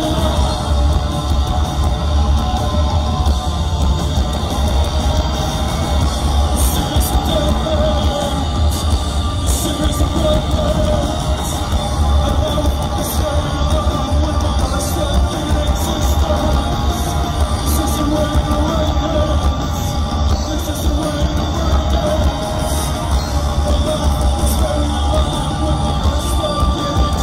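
Live post-punk band playing loudly with a heavy, booming low end: drums, bass, electric guitars and synth, with a woman singing over them, heard from within the crowd.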